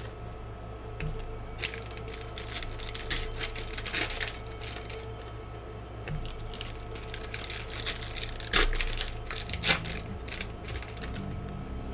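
Crinkling and tearing of a foil trading-card pack wrapper being opened by hand, with the cards handled and slid together. Two sharper, louder clicks come about two-thirds of the way through.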